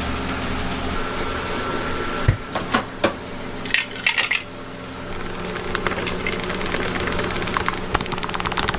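Metal cooking utensils knocking and clinking over a steady background hum: a few sharp knocks about two to three seconds in, a quick cluster of clinks, then fast light tapping through the second half.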